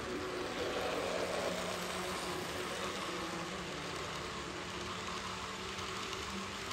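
HO-scale model train, a steam locomotive and passenger carriages, running past on the track: a steady rolling rumble of wheels on rail with a faint motor hum, slightly loudest about a second in as the locomotive passes close.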